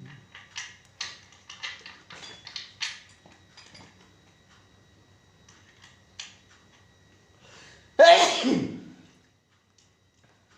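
Scattered light clicks and taps, then one loud sneeze about eight seconds in, falling in pitch over about a second.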